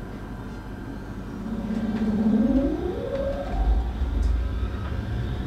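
Electric commuter train pulling away: the traction motors' whine rises steadily in pitch over about two seconds over a running rumble, which grows as the train gathers speed.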